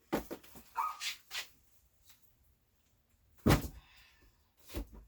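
A dog barking a few short times in the first second and a half, then two heavy thumps, the louder one about three and a half seconds in.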